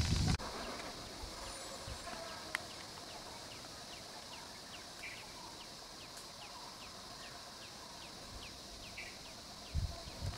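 Outdoor ambience: a steady high insect drone, with a bird repeating a short falling note two or three times a second. A loud low sound cuts off in the first half second, and a few low thumps come near the end.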